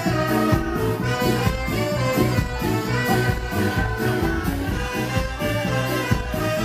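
Ska band playing live and amplified, a horn section with brass and saxophone over drums and bass keeping a steady beat.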